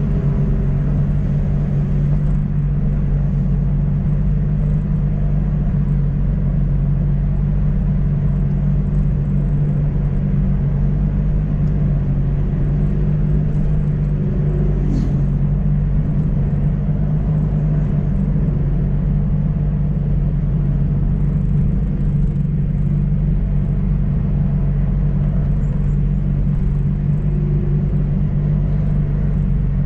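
Car engine droning steadily at a constant cruising speed, with tyre and road noise, heard from inside the cabin.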